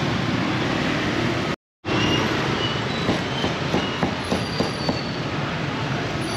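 Busy market background din, steady and noisy, broken near the middle by a quick run of sharp knocks, about three a second.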